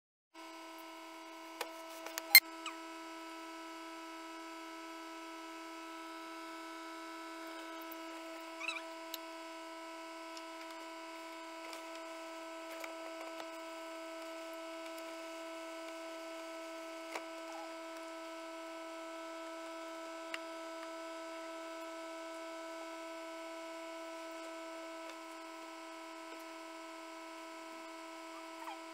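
Egg incubator running with a steady electric hum, with a few sharp clicks, the loudest about two seconds in.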